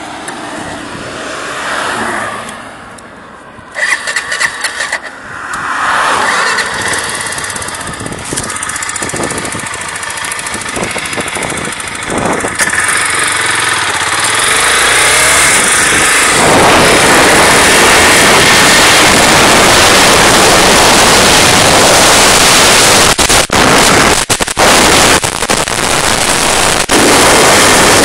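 Honda NX4 Falcon's single-cylinder engine under hard acceleration, revving up and dropping in pitch at each gear change. From about halfway, loud wind rush on the microphone at high speed mostly covers the engine, with a few brief dropouts near the end.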